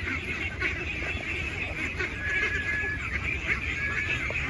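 Large flock of ducks keeping up a steady background chatter, with no loud quacks close by and a low rumble beneath. A thin, high, level whistle-like note sounds twice in the middle.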